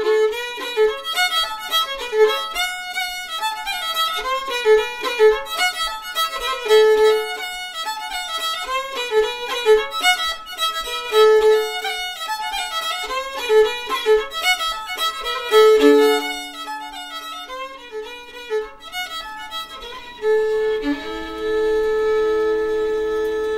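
Fiddle playing a lively tune of quick running notes, which about sixteen seconds in settles into long held notes and sustained double stops.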